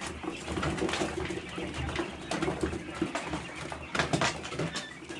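Quails making soft, low cooing calls, with frequent small clicks and rustles.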